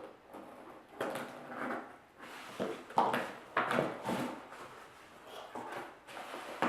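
Packaging being handled and opened: irregular scraping and rustling of cardboard and paper, with the loudest scrapes about one, three and three and a half seconds in.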